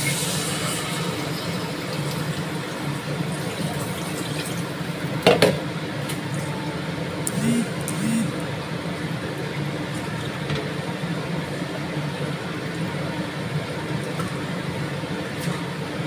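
Water poured from a plastic jug into a stainless steel pot of fried shallot, garlic, ginger and spice paste, then a wooden spoon stirring the broth, with a single knock about five seconds in, over a steady low hum.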